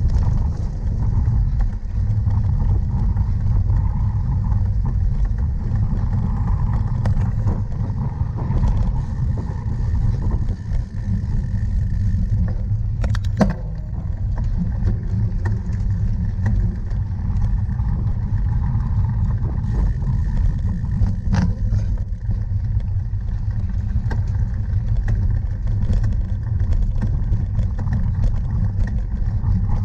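Wind rumbling on the microphone and the rattle of a cyclocross bike being ridden over rough ground, with a sharp knock about halfway through.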